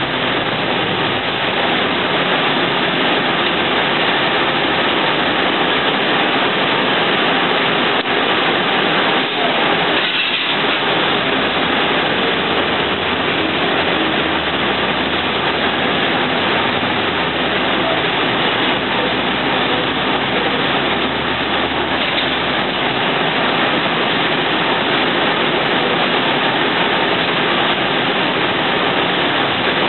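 Steady engine and road noise inside a moving city bus, with a low engine drone coming up in the middle of the stretch.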